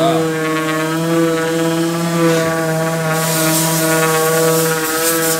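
Air-powered orbital sander running with a steady pitched hum as it sands a wooden cabinet top; a louder hiss joins about three seconds in.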